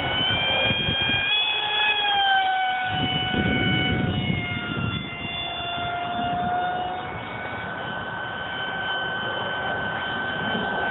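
Electric motor and propeller of an RC foam F-22 jet running at about three-quarter throttle in flight. It makes a steady whine that drops in pitch as the plane passes, a little over two seconds in and again around seven seconds. Wind buffets the microphone in the low range.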